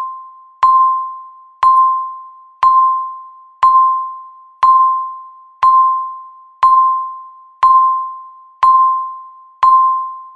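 Countdown timer beep marking each second: a single ding at one steady pitch, struck sharply once a second and fading away before the next, ten times in all.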